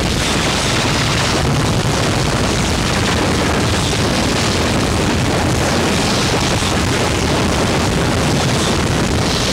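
A continuous wall of loud, harsh distorted noise, steady in level, with no breaks, beat or separate events.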